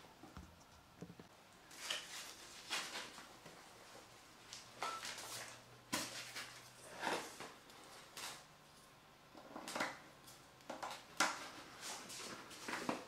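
Assembly handling sounds: irregular rustles and light clicks and knocks as a fabric shoe-shelf panel, plastic corner pieces and metal rods are picked up and fitted together.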